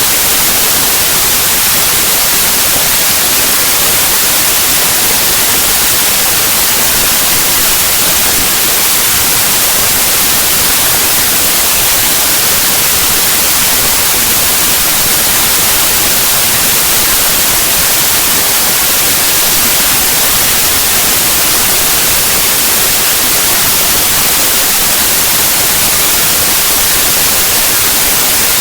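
Loud, steady static like white noise: the bytes of a compressed zip archive played back as raw 8-bit audio, which come out as random noise.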